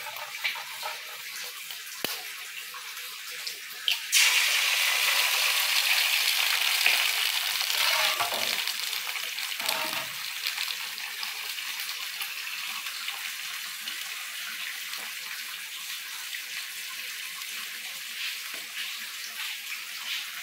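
An egg frying in a hot aluminium frying pan: a loud sizzle starts suddenly about four seconds in as the egg goes into the fat, then slowly dies down to a steady, quieter sizzle.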